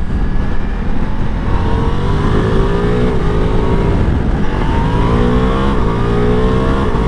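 Ducati Multistrada V4 Pikes Peak's V4 engine accelerating hard. Its pitch climbs and then drops sharply at each of about three quick upshifts.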